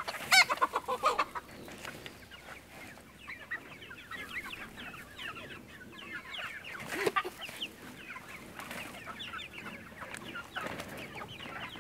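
Chickens clucking and calling over and over, with one loud squawk right at the start.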